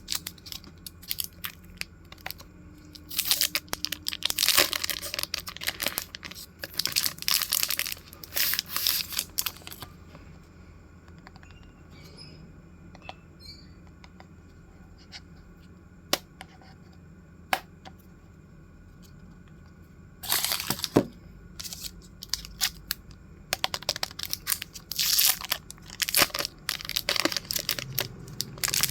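Packaging being torn open and crinkled in handling bursts, with sharp clicks in between and a quieter stretch in the middle.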